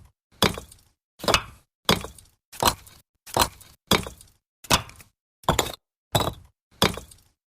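Bricks being stacked: a sharp clack each time one brick is set down on another, about ten in a steady run a little under a second apart, with silence between.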